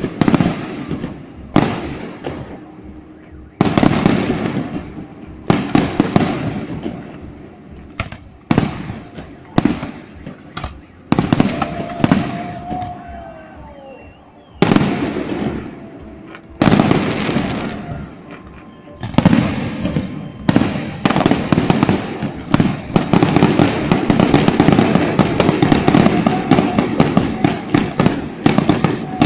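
Fireworks display: a string of loud shell bursts, each a sudden bang that rings away, one to two seconds apart. About two-thirds of the way through the bursts run together into a dense, unbroken crackling barrage.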